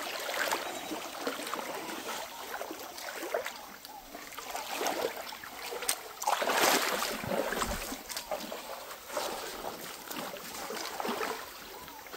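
Water splashing and sloshing irregularly as people wade upstream through a shallow rocky creek, over the creek's running water; a louder splash comes about six and a half seconds in.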